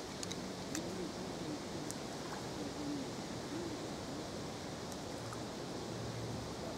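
Steady outdoor background hiss, with a few brief faint high chirps or ticks in the first two seconds and again around five seconds, over a faint low hum.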